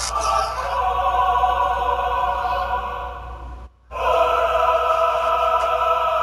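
Dramatic choral music with held, operatic voices, breaking off for a moment a little past halfway before coming back in.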